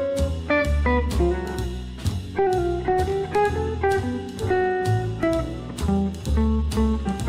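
Background instrumental music: a guitar-led tune over bass notes and a steady drum beat.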